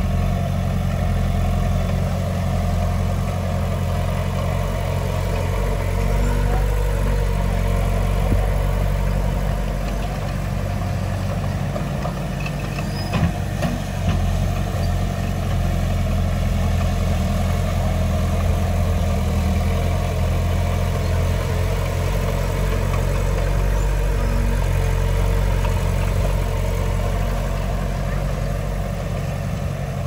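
Heavy diesel engine of earthmoving machinery running steadily at a low, even pitch, with a couple of brief knocks about 13 seconds in.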